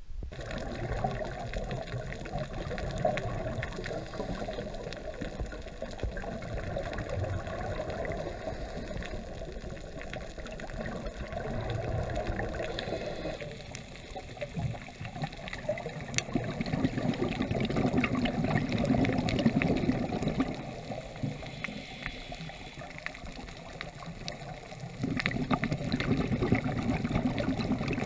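Muffled water gurgling and sloshing, with scattered small clicks. In the later part it swells into louder, deeper gurgling rushes lasting a few seconds each.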